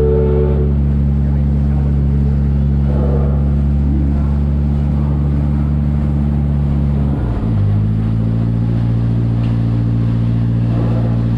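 A vehicle's motor running with a steady low drone, its note shifting abruptly about seven seconds in.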